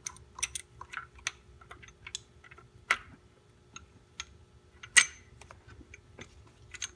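Small metallic clicks and clinks of a steel timing chain and new intake cam sprocket being handled and fitted onto the cam hub, with a louder sharp click about three seconds in and the loudest about five seconds in.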